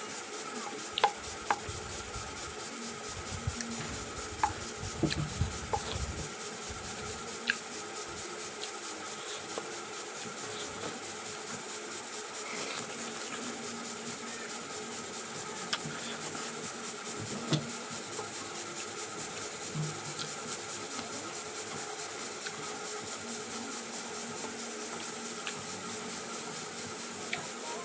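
Eating noodles: scattered sharp clicks and taps of utensils against a bowl, bunched in the first several seconds with soft handling noise, then only a few isolated taps over a steady low hiss.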